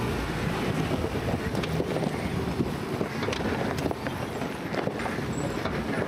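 Ford Bronco moving over a rocky trail: a low vehicle rumble with scattered clicks and crunches, and wind buffeting the microphone.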